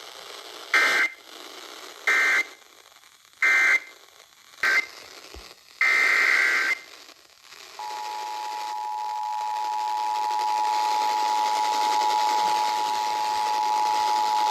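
Emergency Alert System digital header tones: three short, harsh data bursts about a second apart, the end-of-message code of the warning just read, then a very short burst and a longer one. About eight seconds in, the steady two-tone attention signal (853 and 960 Hz) starts and holds, signalling a new alert. A radio hiss lies under it all.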